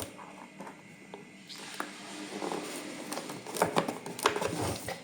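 Hands picking at and breaking the seal on a product box: scratching and scraping with small sharp clicks, busier from about halfway through.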